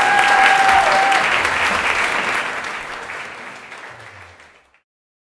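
Audience applauding, with a single held high note from someone in the crowd in the first second. The clapping dies away over the last few seconds and then cuts off.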